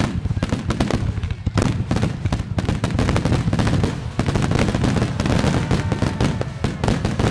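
A rapid barrage of firework shells bursting, many loud bangs overlapping into a continuous rumble: the rapid-fire starmine finale of a fireworks display.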